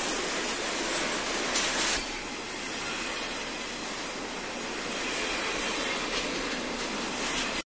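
Freight train rolling past, an EMD F7 unit followed by boxcars: a steady rattling rush of wheels and cars, hissy and thin as on an old film soundtrack. It cuts off abruptly near the end.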